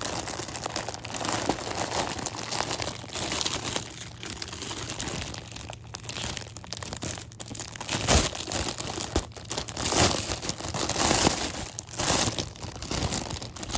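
Clear plastic packaging bag crinkling and rustling in irregular bursts as hands pull and work at it to get it open, with a soft bump about eight seconds in.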